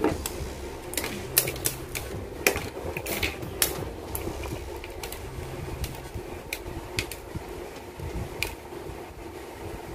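Plastic model-kit parts being snipped from their runners with hobby side cutters: sharp, irregular clicks, closely spaced for the first four seconds and sparser after. A steady hum runs underneath.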